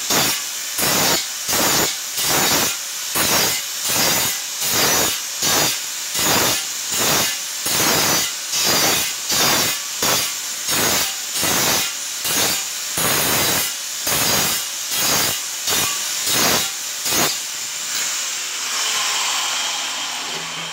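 Angle grinder cutting a round hole through a ceramic tile, the disc biting in repeated strokes about one and a half times a second with a harsh grinding hiss. About 17 seconds in the strokes stop and a steadier hiss carries on, fading near the end.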